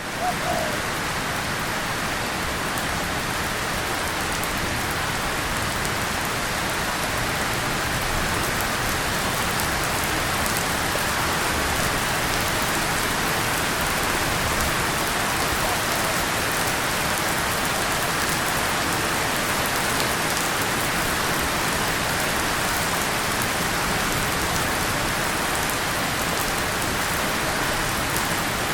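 Steady rain falling, with drops hitting a tin surface and leaves in an even, unbroken hiss.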